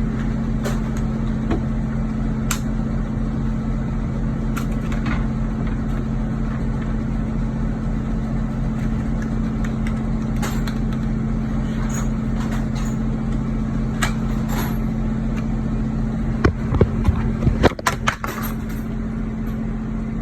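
Steady low hum of an idling vehicle engine, with scattered light clicks and a short cluster of louder knocks and clicks near the end.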